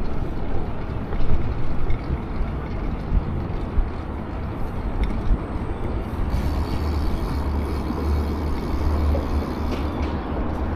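Steady rushing noise of a BMX bike being ridden: wind on the microphone and tyre rumble, with a heavier low rumble for a few seconds past the middle.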